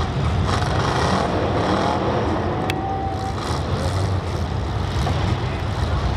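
Demolition derby car engines running in an arena, a steady low rumble with revs rising and falling now and then.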